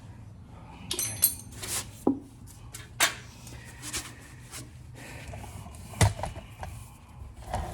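Scattered clinks and knocks of metal tools and car parts being handled, with a few sharp taps, some with a short metallic ring about a second in.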